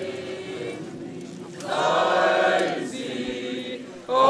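A group of voices singing together in a chant, with long held notes. A louder phrase comes about two seconds in, and another begins near the end.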